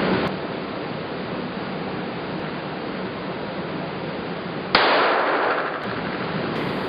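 A single gunshot about three-quarters of the way through, its report ringing and fading over a second or so above a steady hiss. At the start, the tail of an earlier shot is still dying away.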